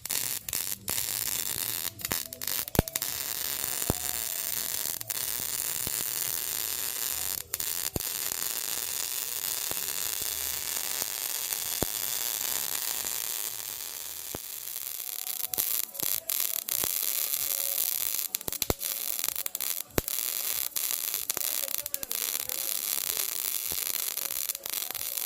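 Electric arc welding: a steady crackling hiss from the arc, with frequent sharp pops, easing briefly about fourteen seconds in before picking up again.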